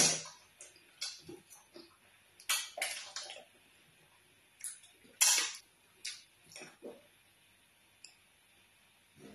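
Close-miked eating sounds: wet, slimy slurps and mouth smacks from eating ogbono soup and fufu by hand, in separate short bursts, the loudest as a mouthful goes in at the start and again about five seconds in.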